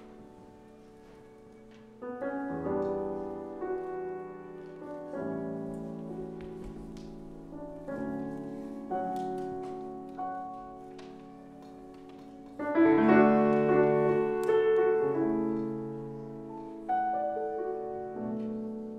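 Solo grand piano improvisation in slow, sustained chords, each struck and left to ring and fade, with the loudest chords about two-thirds of the way in.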